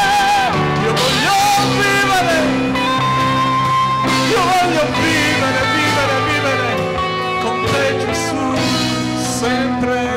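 Live band music: a flute carries a wavering melody with held notes over cello and a drum kit keeping a steady beat.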